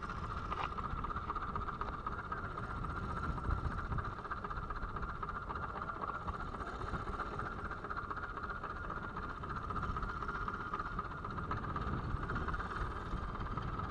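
Fishing boat's engine running steadily, with a steady whine over a low rumble.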